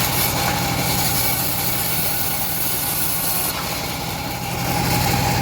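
Homemade engine-driven bandsaw mill running steadily, a constant low engine hum with a steady higher whine.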